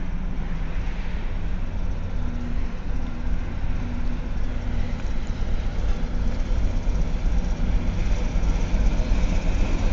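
ChME3T diesel shunting locomotive approaching slowly with a train, its diesel engine running with a steady low rumble that grows louder as it draws near.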